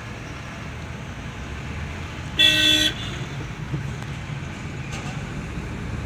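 A vehicle horn honks once, a single blast of about half a second about two and a half seconds in, over the steady low rumble of the car's engine and tyres heard from inside the cabin.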